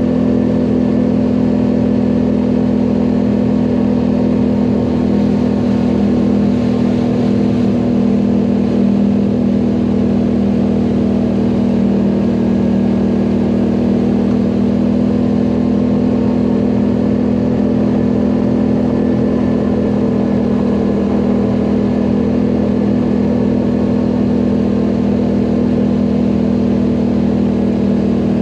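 ATV engine running at a steady speed while riding, a constant loud drone that holds one pitch.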